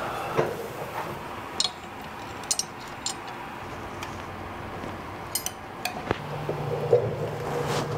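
Scattered light metallic clinks and taps of hand tools and bracket parts being handled, with a low steady hum that starts about six seconds in.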